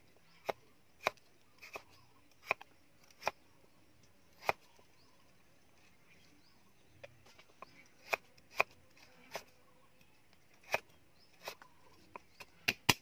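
Heavy cleaver chopping on a round wooden chopping block: single sharp knocks at uneven intervals, a pause of a couple of seconds in the middle, then quicker strokes near the end.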